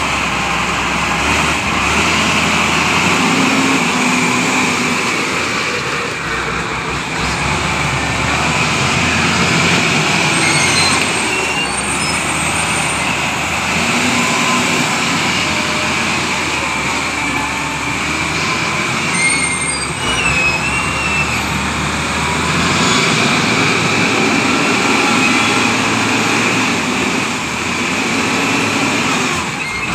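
A heavy vehicle's engine running steadily, with a few short high squeals.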